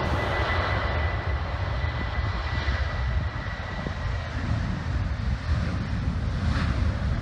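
Boeing 737-700 turbofan jet engines running at takeoff power as the airliner rolls down the runway: a deep rumble with a steady high whine that fades about four seconds in.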